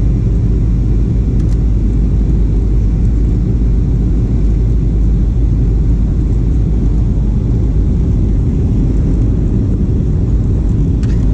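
Steady low rumble of engine and airflow noise inside a Boeing 737 cabin, heard from a window seat on the approach to landing.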